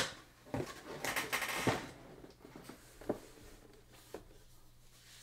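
Tabletop handling noises: a sharp knock, then about a second of rustling and scraping as an emptied cardboard box is moved and a clear plastic helmet display case is handled, then a few light clicks.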